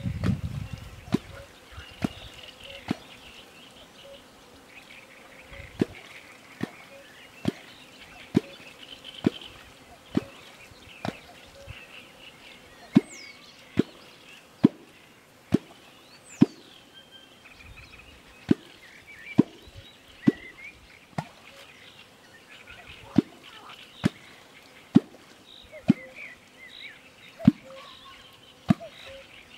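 A catfish kwok being struck into the water, the tool used to call catfish to an angler. It gives a short low plop about once a second, with a few brief pauses in the rhythm.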